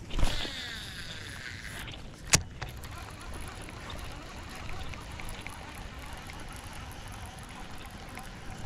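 Baitcasting reel's spool spinning as a chatterbait is cast, its whir dropping in pitch as the spool slows over about a second and a half, followed by a single sharp click. After that, low steady noise as the lure is reeled in.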